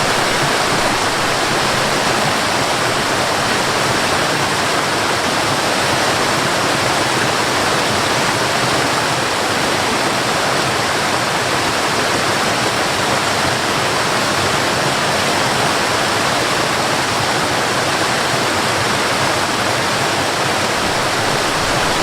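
Mountain river rushing steadily over rocks: a dense, even roar of running water.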